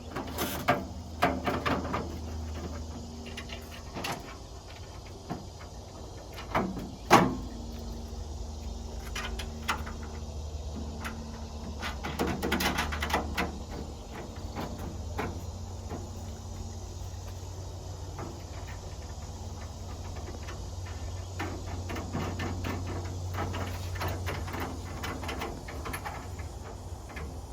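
A hurricane shutter panel being handled and fitted into its track: scattered knocks, clacks and rattles as the panel slides into the header track and is set over the track bolts, then lighter clicks as wing nuts go on, with the loudest knock about seven seconds in. A steady low hum runs underneath.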